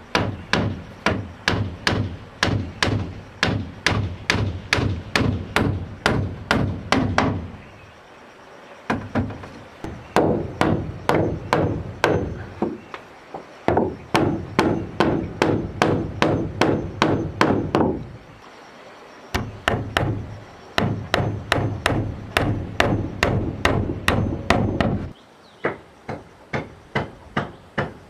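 Rapid, even strikes of a hand tool on wood, about three a second, in runs of several seconds broken by short pauses, with fainter strikes near the end.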